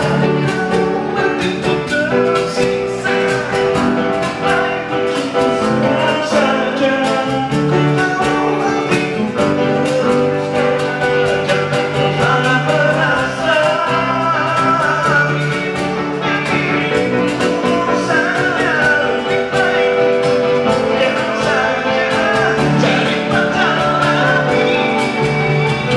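Live band playing a song: male voices singing over electric guitar, bass guitar and a hand-played cajon.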